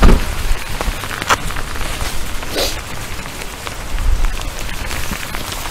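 Storm wind buffeting the microphone over steady rain, with a heavy gust right at the start and a few sharp ticks of drops striking nearby.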